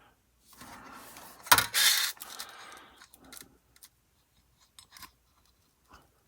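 Small metal tool work on a photo-etched part: a sharp click and a scrape over the first few seconds, then a few faint ticks.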